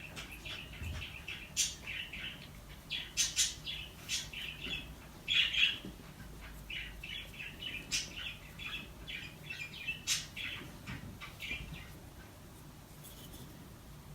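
A bird chirping in quick short calls, with a few sharper squawks mixed in; the calls die away near the end.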